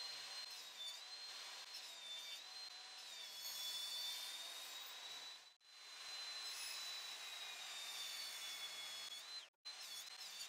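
Bosch GTS254 10-inch table saw running, its high blade whine dipping in pitch each time the blade bites into pine to make 45-degree cuts. The sound drops out briefly twice.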